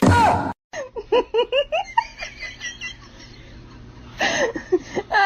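A short loud cry with a falling pitch, then high-pitched laughter in quick repeated bursts, fading in the middle and picking up again near the end.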